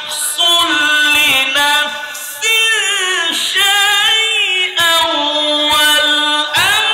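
A man reciting the Quran in the melodic tilawat style, with long, ornamented held notes that glide and trill in pitch. He sings several long phrases with short breaks between them.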